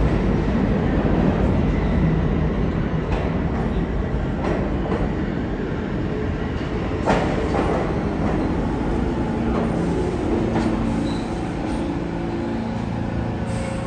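R46 subway train pulling into an underground station and slowing: a loud, steady rumble of wheels on rails with scattered clicks over the track, and a steady low hum coming in during the second half as it slows alongside the platform.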